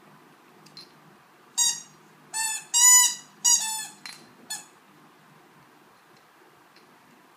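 Squeaky toy sneaker squeezed in a dog's jaws, giving about five sharp squeaks in quick succession. The loudest and longest squeak comes in the middle, and some squeaks drop in pitch as the toy is released.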